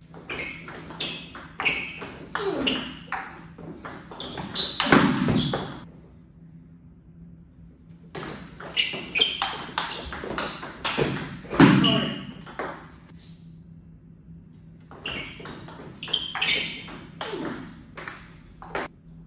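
Table tennis ball clicking off paddles and table in three quick rallies separated by short pauses. There is a louder moment about five seconds in and again about twelve seconds in, with a short voice sound among the hits.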